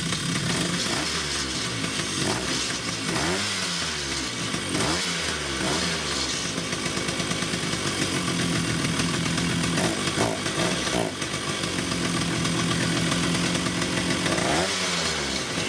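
A Vespa two-stroke engine with an SI carburettor running on its very first start, fired on fuel alone without starter spray. The revs dip and pick up again several times in the first six seconds and once more near the end, holding steadier in between.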